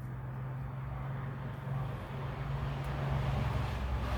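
A motor vehicle's engine running with a steady low hum that grows gradually louder.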